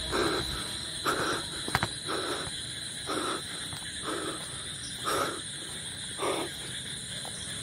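Footsteps on a dry forest floor, about one step a second, over a steady high chirring of night insects such as crickets.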